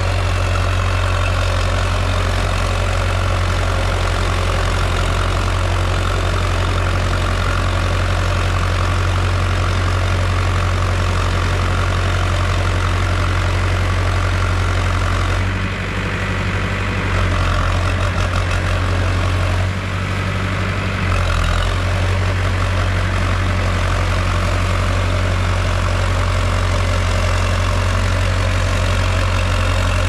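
Tractor engine running steadily while ploughing a rice paddy. Its note shifts briefly about halfway through, then settles again.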